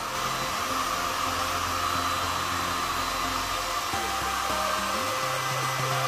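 Small handheld electric blower motor running steadily with an airy rush of air, over background music.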